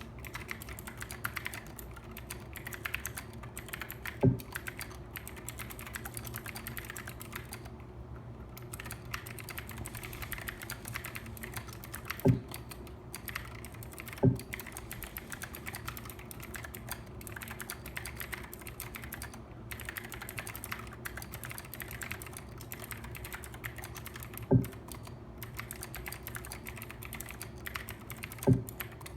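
Continuous typing on a Dactyl split ergonomic mechanical keyboard with clicky Gateron green switches: a dense patter of key clicks with a brief pause about eight seconds in. A few louder, deeper thumps stand out here and there.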